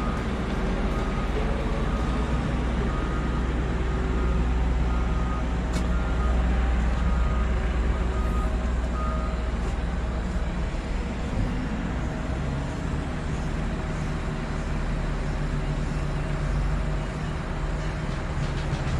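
Heavy diesel earthmoving machinery running with a steady low drone, while a reversing alarm beeps evenly for about the first half, then stops.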